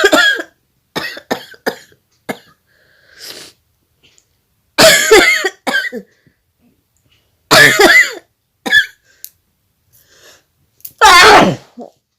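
A woman sneezing hard again and again, four loud sneezes a few seconds apart with short sniffs between them. The sneezes are forced by tickling the inside of her nose with a chili stem.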